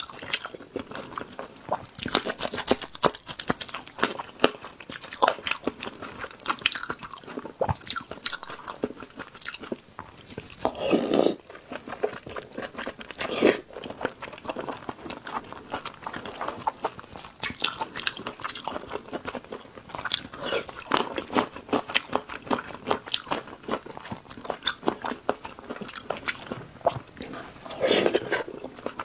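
Close-miked chewing and biting of food, with many small wet mouth clicks and smacks; two louder, longer mouth sounds come about eleven seconds in and again near the end.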